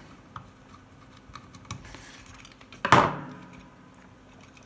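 Screwdriver working a small screw out of the circuit board inside a Dunlop Cry Baby wah pedal's housing: faint scattered clicks and scrapes. About three seconds in, one sharp, loud knock that rings briefly.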